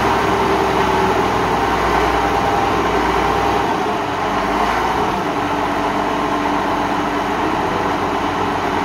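Caterpillar 12G motor grader's six-cylinder diesel engine running steadily, its note easing a little about four seconds in.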